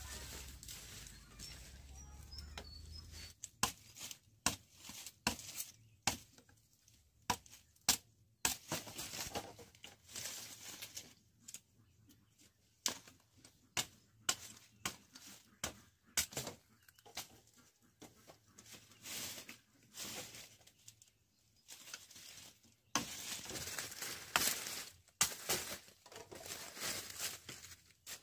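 Sugarcane being cut and stripped by hand: irregular sharp cracks and knocks, with stretches of dry leaves rustling and tearing about eight seconds in and again near the end.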